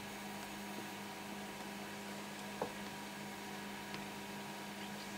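Steady low electrical hum over a faint hiss, with one soft click about two and a half seconds in.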